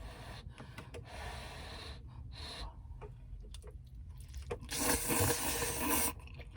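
Close-miked eating of hot Jolli Spaghetti: quiet chewing, small clicks and scraping, then a loud breathy hiss about two thirds of the way through that lasts about a second and a half.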